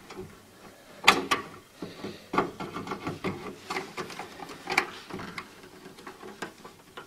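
Handling sounds of a motherboard power connector and its cables being worked into place inside a metal PC case: rustling and rubbing with a few sharp plastic-on-metal knocks, the loudest about a second in and others near two and a half, four and five seconds.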